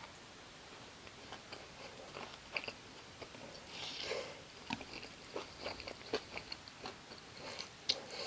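Close-miked eating: a person chewing and biting fried gimmari and rice cakes in spicy tteokbokki sauce, with many small sharp mouth clicks and smacks scattered throughout.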